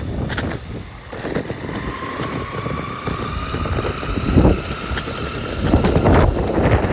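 Ecomobl ET electric skateboard riding: a thin motor whine whose pitch slowly rises as the board speeds up, under gusts of wind buffeting the microphone.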